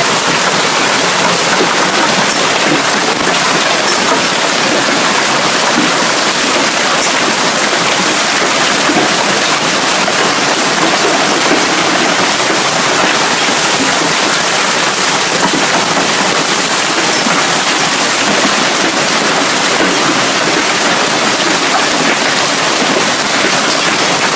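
A heavy hailstorm downpour of rain and hail: a loud, steady hiss with no letup.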